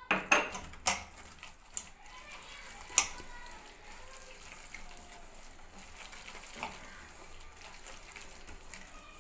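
A hand mixing wet gram-flour batter with mustard flowers in a steel bowl: watery squelching, with a few sharp clinks against the bowl in the first three seconds.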